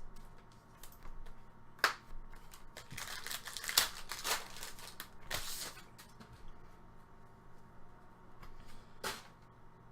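Trading cards being handled and flipped through, with irregular clicks and short rustling swishes of card stock sliding.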